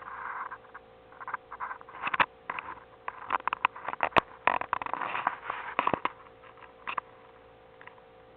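Irregular sharp clicks, taps and short scraping rustles, coming in uneven clusters with a busier stretch from about two to six seconds in, over a faint steady electrical hum.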